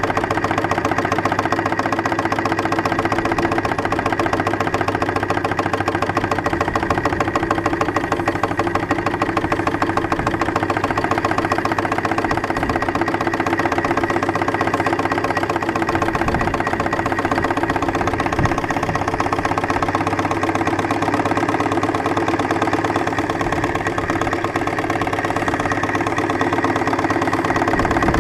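3-inch scale live-steam Case traction engine running as it is driven along, its exhaust beats coming fast and even.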